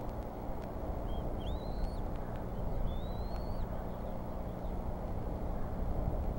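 Steady low outdoor rumble with a bird's thin, high whistled calls over it: two calls that rise in pitch, each about half a second long, the first with a short note just before it.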